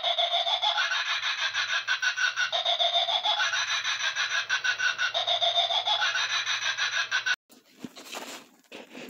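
A tinny, rasping sound effect with a quick pulsing beat, repeating the same short loop about every two and a half seconds, that cuts off suddenly about seven seconds in.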